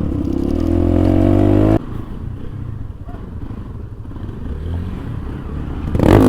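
Motorcycle engine revving, its pitch dipping and then climbing before cutting off abruptly about two seconds in; a quieter, rougher engine sound follows, and a loud rev comes in near the end.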